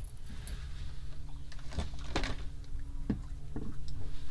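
A few short knocks and clicks over a steady low hum.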